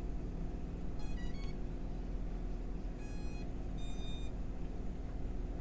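BetaFPV Meteor75 tiny whoop drone beeping on power-up, its ESC startup tones played through the motors. A quick run of changing notes comes about a second in, then two steady beeps follow about three and four seconds in.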